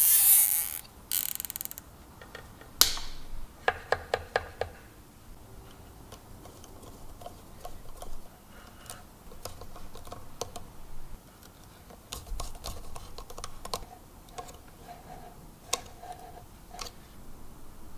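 Hand-wiring sounds at a transformer's screw-terminal block: a rustling scrape as the sheathed cable is handled at the start, then a quick run of light ringing ticks about four seconds in and scattered small clicks and taps as a screwdriver works the terminal screws.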